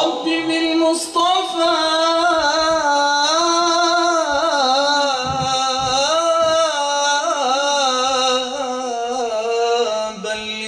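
A man singing an Islamic nasheed into a microphone with no instruments heard: one long ornamented vocal line that rises, falls and wavers in pitch without breaking, starting suddenly at full strength.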